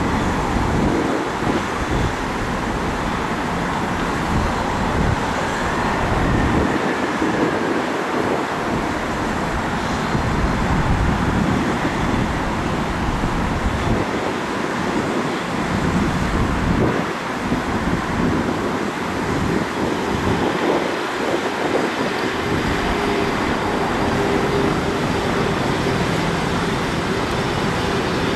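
Airbus A330-302's twin turbofan engines (GE CF6-80E1) on the landing rollout: a steady rushing jet noise as the airliner decelerates to taxi speed. A steady engine hum comes up near the end. Wind buffets the microphone with low gusts.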